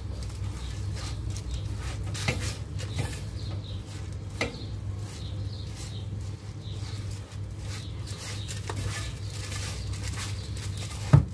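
A plastic-gloved hand mixing soaked raw rice in a pot: soft rustling and pattering of the wet grains, with a couple of light clicks and one sharp thump near the end, over a steady low hum.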